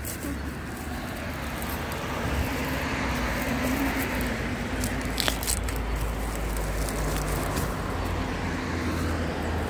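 Rustling and crackling of dry grass underfoot and by hand, over a steady low rumble that swells through the middle, with one sharp click about five seconds in.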